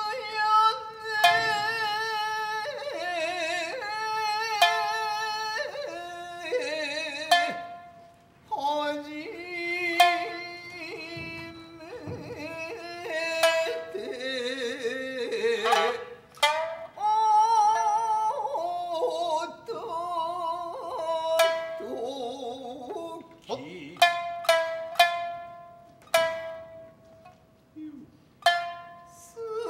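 Japanese classical dance music: plucked shamisen notes under a sung vocal line with wide, wavering vibrato. There are short pauses between phrases.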